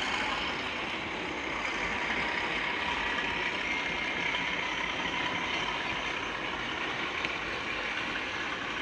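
Steady diesel engine sound of an OO gauge model diesel locomotive hauling a freight train past, with the running rumble of the train.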